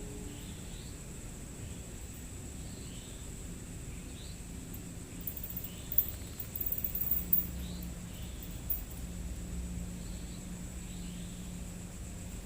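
Night ambience: steady hiss with a thin high insect-like drone and faint, repeated short chirps. There is a brief cluster of faint clicks and crackles about halfway through.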